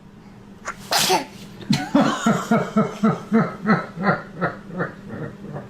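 A baby's sneeze about a second in, followed by a run of rhythmic laughter, about three pulses a second, that fades toward the end.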